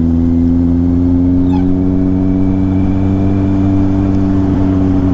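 Kawasaki Z800's inline-four engine running steadily while riding, its pitch climbing slowly over the first few seconds and easing off slightly near the end.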